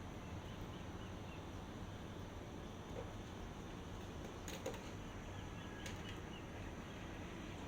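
Steady outdoor background noise, heaviest in the low end, with a few faint distant bird chirps and a couple of soft clicks midway.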